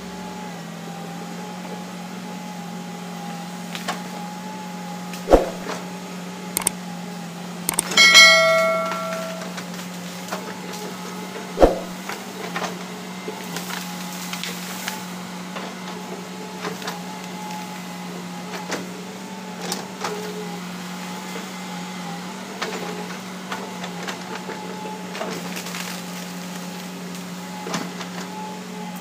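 Hitachi Zaxis 200-5G excavator's diesel engine running steadily under working load as the arm and bucket dig and shift logs, with a few sharp knocks and, about eight seconds in, one loud ringing metal clank.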